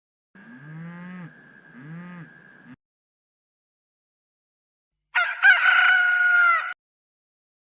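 A rooster crowing once, loud, about five seconds in. Before it come two quieter, low, arching calls from another animal.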